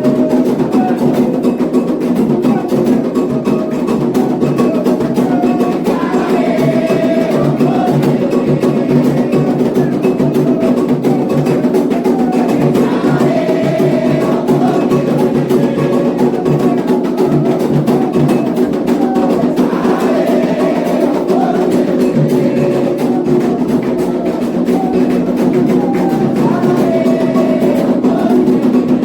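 Candomblé xiré music: atabaque hand drums and a metal bell beat a fast, continuous rhythm, while voices sing phrases to the orixás over them, returning every six or seven seconds.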